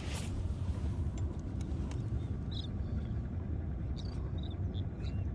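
Steady low rumbling background noise, with a few faint short high chirps and light clicks scattered through it.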